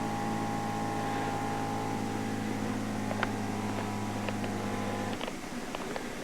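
A small electric motor hums steadily at one low pitch and cuts off abruptly about five seconds in, followed by a few light clicks.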